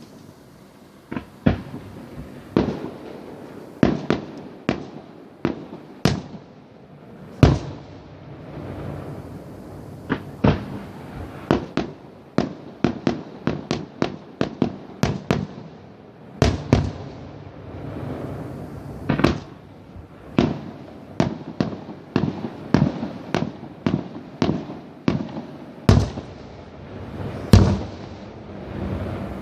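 Fireworks going off: an irregular string of dozens of sharp bangs and cracks, some close together and some spaced out, over a continuous rumble and crackle. The loudest bangs come near the end.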